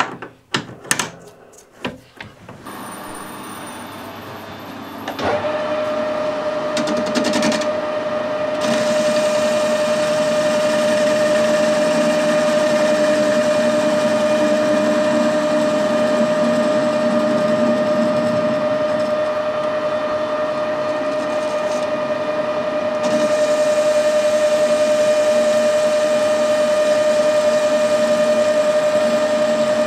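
A few clicks and knocks, then a metal lathe starts up about five seconds in and runs steadily with a high gear whine. Meanwhile a facing cut is taken across the end of a 50 mm steel bar, and the sound gets a little louder near the end.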